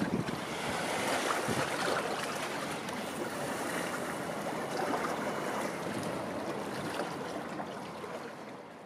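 Wind buffeting the microphone over a steady rushing noise, fading out near the end.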